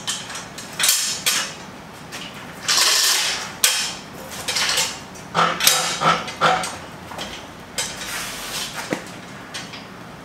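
Hoist chain rattling and metal clinking and scraping as an engine and transmission hanging from a gantry crane are pushed and shifted by hand. The clanks come irregularly, with a sharp click near the end.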